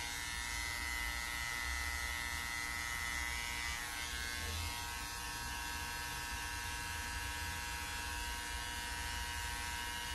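Electric hair clippers buzzing steadily as they cut the hair around the ear.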